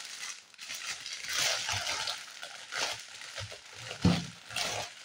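Crinkly metallic plastic wrapping of a chocolate Easter egg crackling and rustling in irregular bursts as it is handled and pulled open, with one sharper burst about four seconds in.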